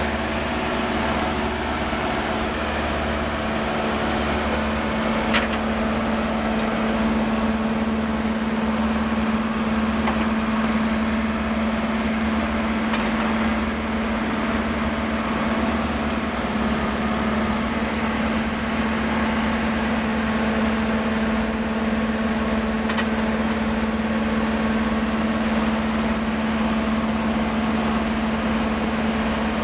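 Caisson core drilling rig running steadily: a constant mechanical drone with a strong low hum, broken by a few brief clicks.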